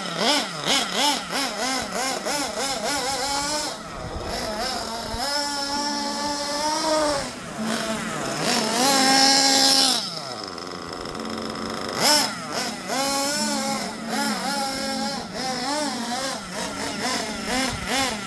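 Small .21 nitro engine of a 1:8 scale HSP Tornado RC buggy, kept running by repeated throttle blips, so its pitch rises and falls over and over, with a longer high rev about halfway. It will not hold an idle on its own without throttle, which is the owner's idle problem.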